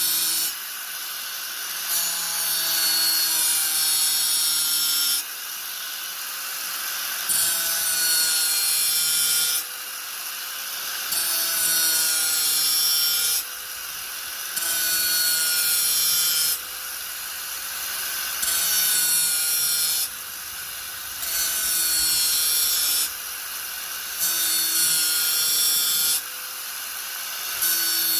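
Angle grinder worked against material in repeated passes: loud grinding stretches of two to three seconds each, broken by about a second of the motor running lighter, its whine climbing back up in each gap.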